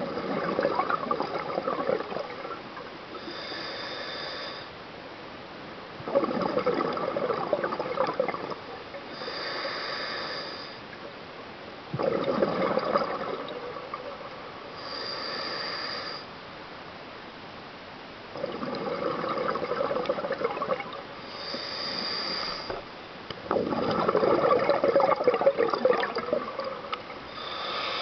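Scuba diver breathing through a regulator: a high-pitched hiss on each inhale, then a longer, louder gurgle of exhaled bubbles, in a steady cycle about every six seconds.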